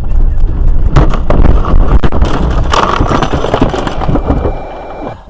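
Loud, rough vehicle noise with sharp bangs about one and two seconds in, dying down near the end.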